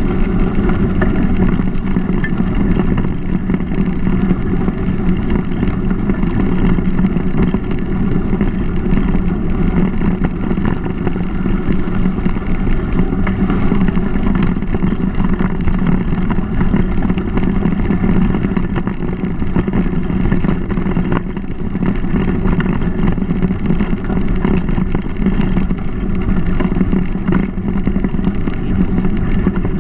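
Steady, loud rumble of wind buffeting a GoPro's microphone, mixed with tyre noise from a mountain bike rolling along a dirt trail.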